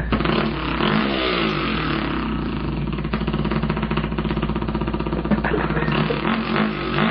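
A man imitating a two-stroke dirt bike engine with his voice: a continuous buzzing rasp that revs up and down, holds a steadier pitch in the middle, then revs again near the end.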